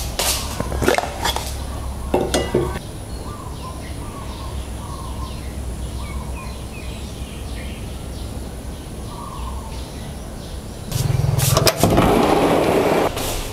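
A few sharp clicks and knocks in the first few seconds over a low hum, typical of a plastic food processor bowl being handled, then faint short bird chirps in the background, and a loud rustling noise near the end.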